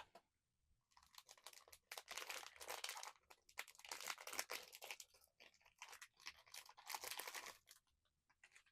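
Blind-box toy packaging being torn open and crinkled by hand: a dense run of crackling and tearing from about a second in until just before the end.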